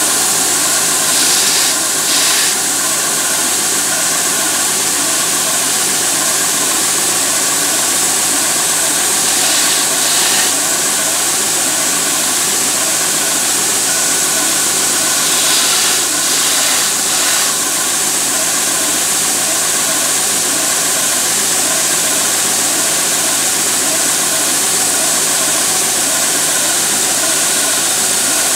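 Large edge belt sander running steadily, its belt giving a loud, even hiss over a motor hum. A few times a brief, harsher grinding rises over it as the metal fret ends on a canjo neck are pressed against the belt to bevel them.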